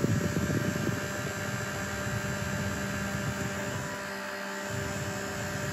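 Small rechargeable tripod fan running on its low setting: a steady motor hum with a few clear tones over the rush of the spinning blades.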